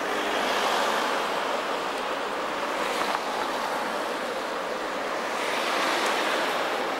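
Steady rushing hiss of street traffic on a wet road, mixed with a low-floor tram approaching along its track.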